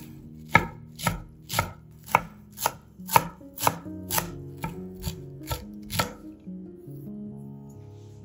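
A knife chopping food on a cutting board: about a dozen even strokes at roughly two a second, stopping about six seconds in.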